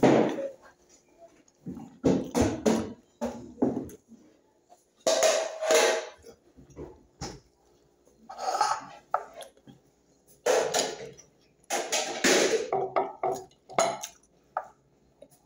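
Eating by hand from a glass bowl: chewing and mouth noises come close to the microphone in separate bursts with quiet gaps, along with short clinks and knocks from the bowl being handled.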